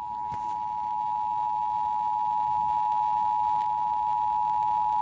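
Emergency Alert System two-tone attention signal: two steady tones (853 and 960 Hz) sounding together at an even level. It is the alert tone that comes before a spoken warning is broadcast.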